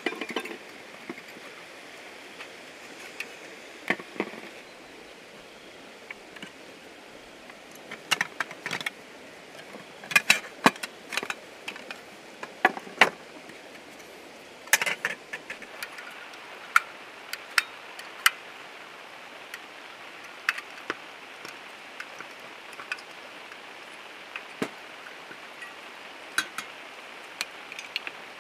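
Stainless camping cookware and a portable gas stove clinking and clicking as the pots are unpacked and handled and the stove's metal pot supports are folded out. The knocks are short and irregular, thickest about halfway through, over a steady background hiss.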